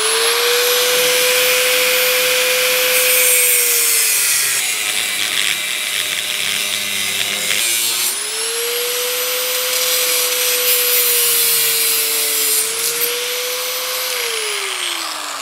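Corded electric angle grinder with a cutoff wheel cutting through sheet-steel panel. The motor spins up to a steady whine and sags in pitch as the wheel bites, with a hissing grind of metal being cut. It starts up again about eight seconds in and winds down near the end.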